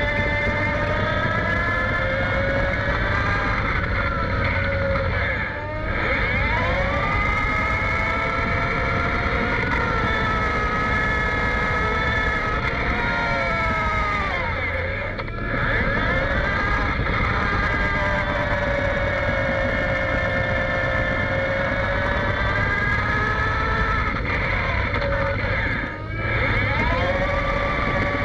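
John Deere 850J crawler dozer travelling over dirt, heard from under the machine: its diesel engine and hydrostatic drive run with a loud, steady whine over a low rumble. The whine drops in pitch and level and then climbs back three times, about ten seconds apart.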